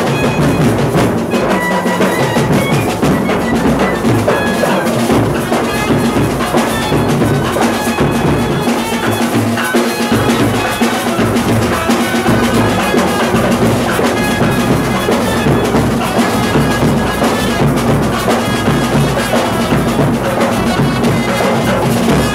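Live street band playing loud, unbroken kuthu dance music: trumpets carrying the melody over pounding drums.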